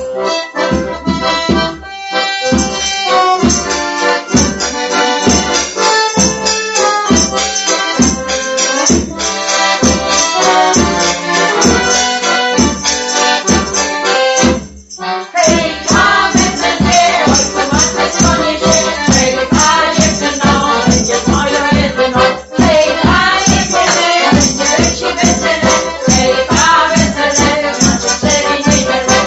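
Polish folk song on a piano accordion, played with a steady pulsing bass-and-chord beat. After a short break about halfway through, voices sing the melody over the accordion.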